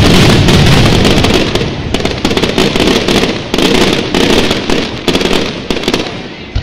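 Fireworks grand finale barrage: aerial shells bursting so close together that the bangs run into one continuous rumble. After about a second and a half the barrage thins into separate bangs that grow sparser and fainter as the finale dies away.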